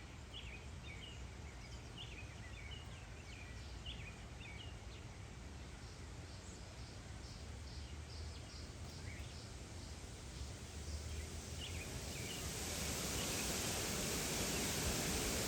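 Small songbirds chirping sporadically over a low steady rumble, with a short run of evenly spaced high notes midway. About three-quarters through, a broad rushing hiss swells up and grows louder, covering the birds.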